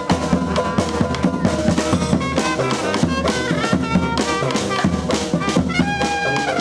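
Live street brass band playing an up-tempo groove: horns over a driving drum kit and percussion. Near the end, a horn holds one long note.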